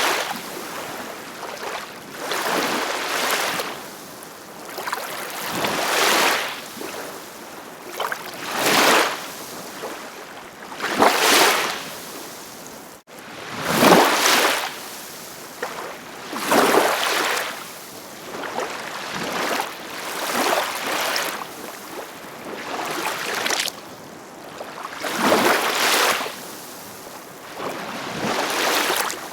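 Ocean waves washing in, a rushing hiss that swells and fades about every two to three seconds. The sound cuts out for an instant about thirteen seconds in.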